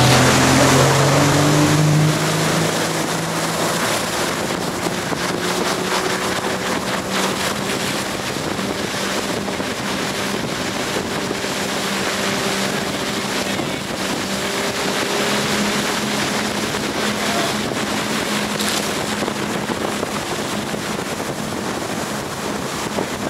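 Motorboat engine towing a barefoot waterskier, its pitch climbing over the first two seconds and then holding steady at speed, under a steady rush of spray and wind on the microphone.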